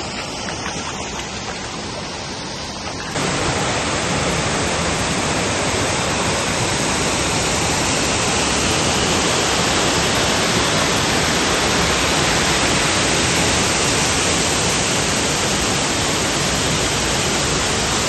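Gooseberry Falls waterfall rushing, a dense steady noise of falling water. It is quieter at first and jumps abruptly louder about three seconds in, then holds steady.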